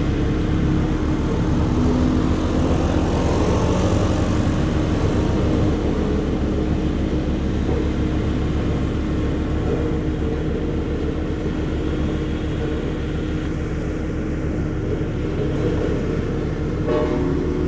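Diesel engine of a BW 211D road roller running steadily with a low, even throb, rising in pitch for a few seconds about two seconds in.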